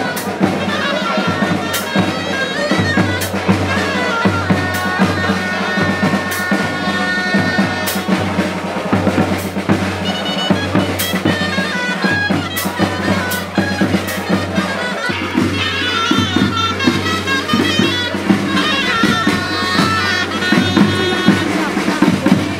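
Dulzainas (Castilian reed shawms) playing a lively dance tune over a snare drum beating a steady rhythm.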